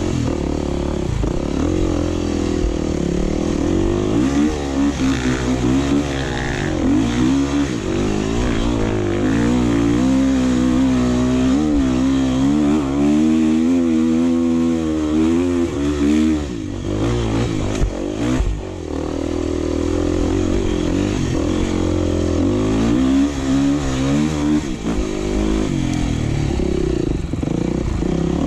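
Off-road dirt bike engine running on a trail, the throttle constantly opening and closing so the pitch rises and falls, with a couple of brief let-offs about two-thirds of the way through.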